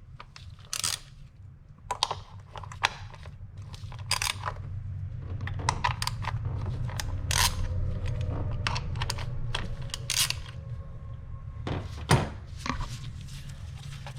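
Metal clinks and clicks of a 10mm socket on the bolts holding the ignition coil packs as they are loosened and pulled out. A low steady hum grows louder through the middle and fades near the end, and there is a sharper knock near the end.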